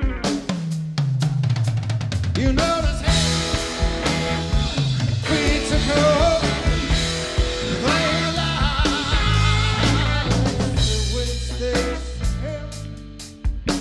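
Live jazz-rock band playing an instrumental passage: a drum kit with busy snare and bass drum, a bass guitar line, a Hammond B3 organ played in quick runs, and an electric guitar.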